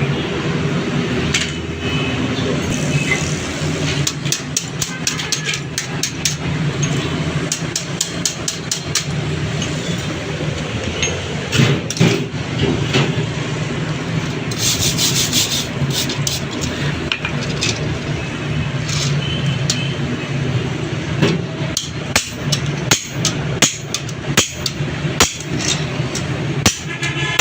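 Metal tapping, knocking and scraping from hand tools, typical of work on a truck's clutch pressure plate, over a steady low engine hum. There is a short hissing scrape about midway, and the taps come thick and fast near the end.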